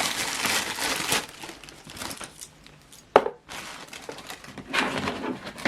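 Crinkling and rustling of the packaging of a laptop charger as it is handled, with a sharp knock about three seconds in and another at the end.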